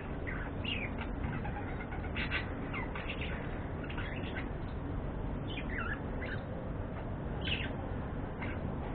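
Budgerigars (pet parakeets) chirping in short, scattered calls, some of them sliding down in pitch, over a steady background noise.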